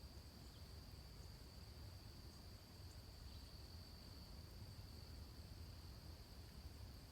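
Near silence, with a faint steady high-pitched tone throughout.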